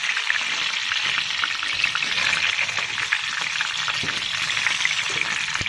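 Chicken drumsticks sizzling in hot oil in a frying pan, a steady dense crackle, with one sharp click near the end.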